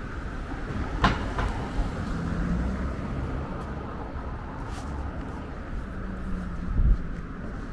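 City street traffic with a steady low rumble, a sharp click with a brief ringing tone about a second in, and a low thump near the end.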